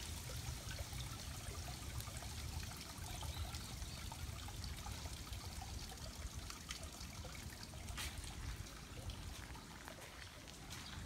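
Water trickling steadily from a bamboo spout into a stone purification basin, with a low rumble underneath.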